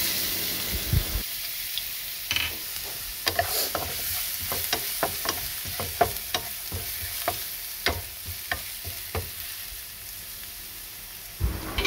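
Minced garlic sizzling in hot oil in a nonstick frying pan, tipped in at the start, then stirred with a wooden spatula that scrapes and taps against the pan many times.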